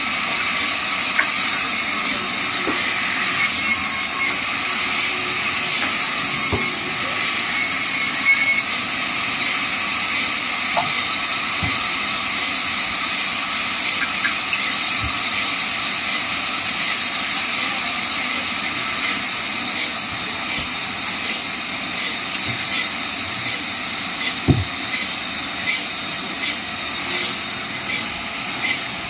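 Vertical band sawmill running and cutting wood: a steady hissing noise with a thin high whistle, and a few knocks. In the second half, a regular pulse comes in at about three beats every two seconds.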